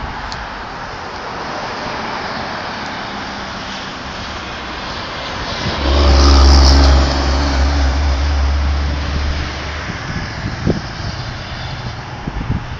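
Road traffic passing. A large motorhome drives by close about six seconds in, and its low engine hum is the loudest sound for a second or so before fading away over the next few seconds.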